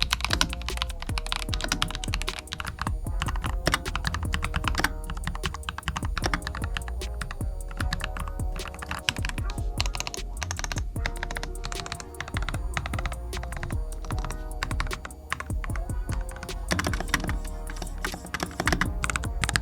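Fast typing on a mechanical keyboard with PBT keycaps: a dense, continuous run of muffled key clacks. Background music plays underneath.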